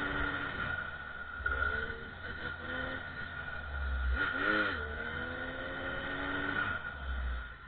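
Small two-stroke engine of a motorized bicycle running hard under way, its pitch rising and falling, with a quick blip of revs up and down about four and a half seconds in. Wind buffets the microphone with a low rumble.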